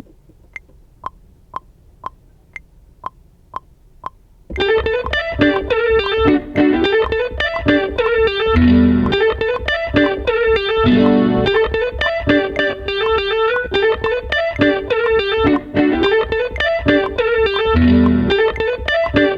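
Instrumental beat: eight evenly spaced clicks, about two a second, over near quiet, then at about four and a half seconds the full track comes in, a busy plucked-string melody with effects over a steady beat and deep bass notes that recur every few seconds.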